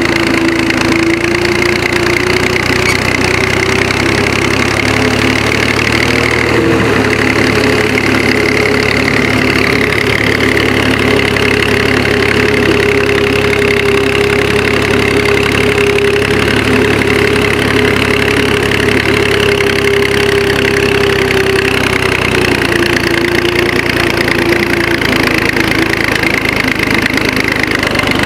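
Small farm tractor's engine running steadily while it tows a harrow across tilled soil. Its speed rises slightly a few seconds in and eases back down near the end.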